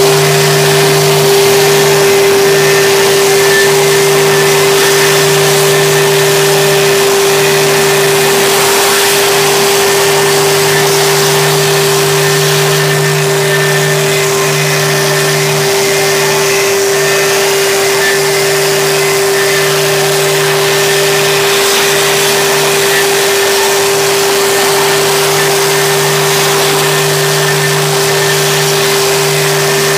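CNC router spindle running at a steady whine while its bit cuts a dished rosette into a wooden board, with the rush of a dust-extraction hose at the cutter and a lower hum that swells and drops every second or two.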